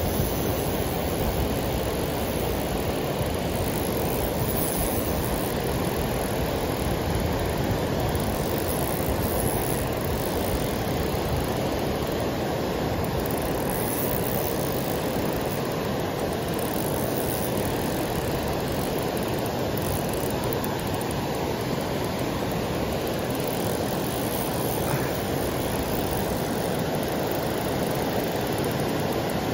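Steady rushing noise of river water pouring over a dam spillway.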